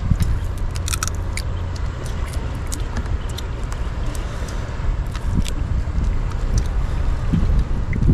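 Steady low rumble of wind on the microphone, with many small sharp clicks scattered through it.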